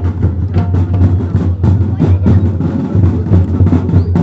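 Traditional Santali festival drumming: several drums beaten together in a fast, steady rhythm of about five strokes a second, with a deep booming bass under sharp strokes.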